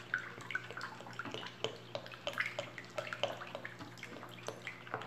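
Plastic spoon stirring liquid soap batter of oil, lye solution and coconut milk in a plastic basin: irregular small splashes and sloshing with light clicks, several a second. The batter is beginning to thicken toward trace.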